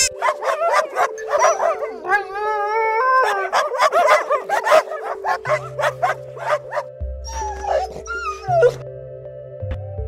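Puppy yipping and whimpering, a rapid run of short, high calls that thins out in the second half. Background music with sustained notes and a bass line plays underneath.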